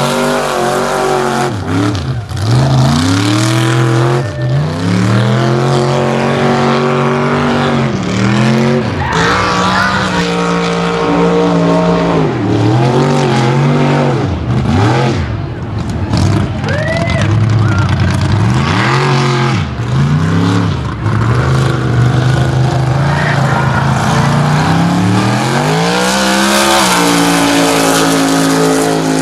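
Mud bog trucks' engines revving hard through a mud pit, the pitch climbing and falling again and again as the throttle is worked.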